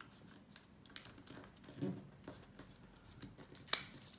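Sheet of origami paper being folded and handled by hand: scattered crisp rustles and creasing clicks, the sharpest near the end, with a soft low thump about halfway through.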